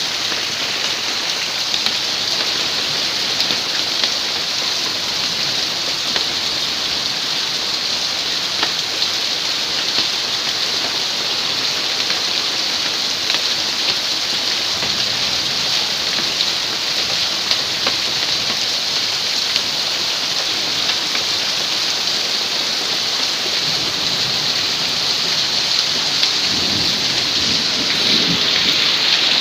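Hail and heavy rain pelting down: a dense, steady hiss peppered with sharp ticks of hailstones striking. A low rumble rises near the end.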